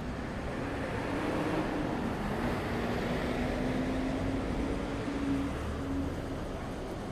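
A motor vehicle passing on the road: its engine hum and tyre noise swell over about five seconds and then fade.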